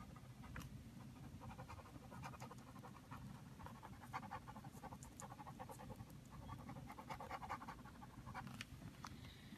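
Pen scribbling on a small paper card: quick, faint back-and-forth shading strokes as the ground of a drawing is coloured in, over a low steady hum.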